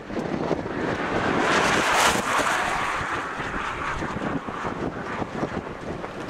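Wind buffeting the microphone, with a passing vehicle's rush of tyre and road noise that swells about a second in, peaks near two seconds and fades away.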